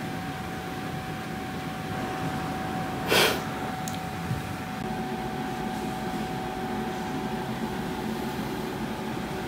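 Steady mechanical hum of room noise carrying one faint, constant whine. About three seconds in comes a brief noisy burst, the loudest moment.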